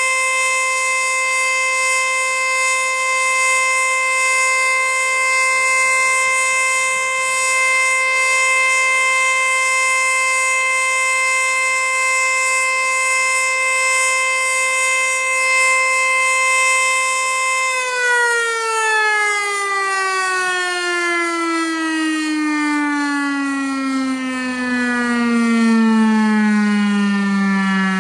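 Federal Signal Eclipse-NH outdoor warning siren sounding the steady Full Alert tone, then winding down about two-thirds of the way through, its pitch falling slowly as the rotor coasts to a stop.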